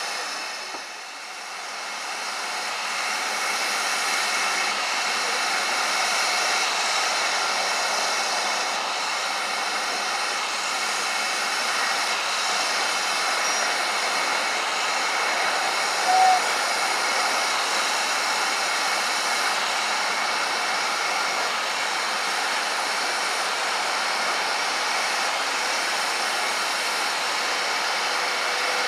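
Steady hiss of steam escaping from a standing steam locomotive, with a brief high chirp about halfway through.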